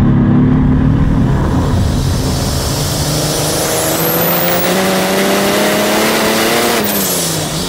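Mercedes OM606 turbo-diesel straight-six in a BMW E28 pulling hard in fourth gear, its note climbing steadily with a faint high turbo whistle rising over it. Near the end the pitch drops sharply as the throttle comes off.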